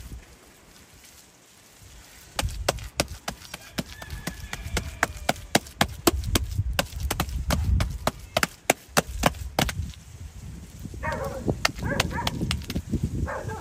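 Bare hands slapping and patting a wet clay-and-straw mixture flat on a wooden board: a quick run of sharp, wet slaps starting about two seconds in and stopping about ten seconds in. A short vocal call follows near the end.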